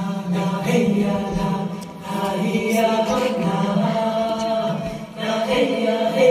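Choral chanting: voices holding long, drawn-out notes over a steady low drone, with short breaks about two seconds in and again near five seconds.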